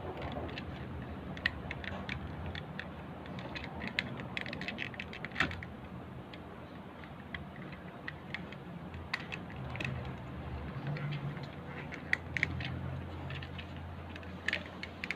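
Scattered small clicks and light rattles, like small hard parts being handled, with a cluster of them about four to five seconds in, over a steady low hum.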